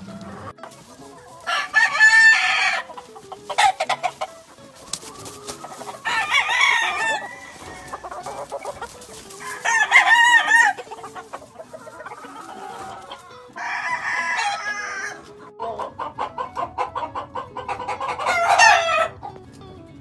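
Gamefowl roosters crowing again and again, about five crows a few seconds apart, with clucking in between.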